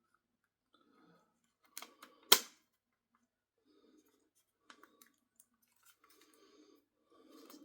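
Plastic clicks and handling noises as a model locomotive's body shell is worked back onto its chassis: two clicks a little after a second and a half, the second much the loudest and sharpest, then a few fainter clicks and soft rustling.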